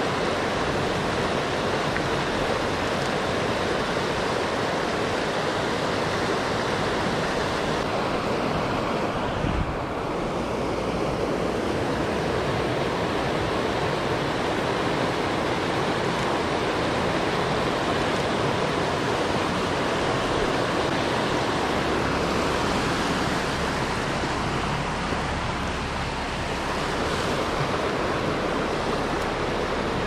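Rushing creek water cascading over rocks, a steady loud roar, with one brief low thump about a third of the way in.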